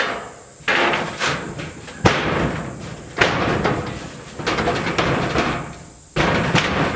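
Screws being driven through steel siding into the wooden girts with a cordless power driver, in a series of short bursts about one a second, the thin metal panel rattling with each one.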